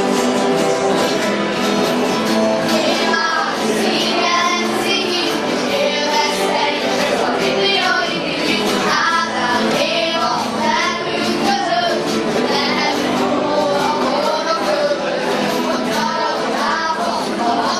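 Several acoustic guitars strumming chords, with a group of children singing along from about three seconds in.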